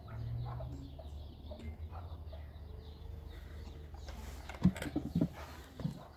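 Small birds chirping repeatedly, with a steady low hum. About four and a half seconds in there is a short clatter of several sharp knocks and clinks, and one more near the end.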